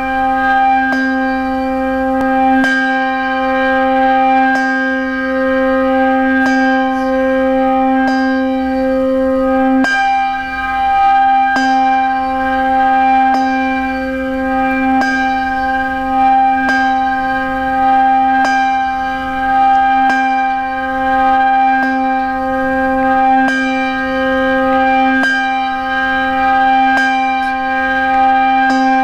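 A church bell tolling slowly, about one strike every two seconds, each stroke ringing on under the next so the bell's hum never dies away.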